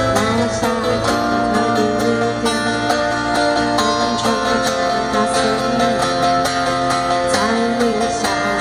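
Acoustic guitar played live through a stage PA, picking and strumming the accompaniment of a song.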